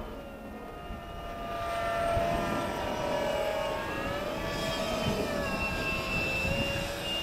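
Electric motor of a radio-controlled model Rafale jet whining in flight, several tones that slowly rise and fall in pitch as the throttle and distance change, growing louder about a second and a half in.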